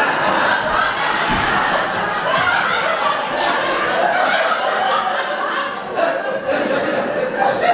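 Audience laughing and chuckling, a steady mix of many voices.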